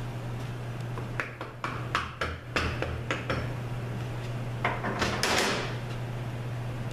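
Metal hand tools being set down and picked up on a workbench: a string of knocks and clanks, then a longer rattling clatter about five seconds in, over a steady low hum.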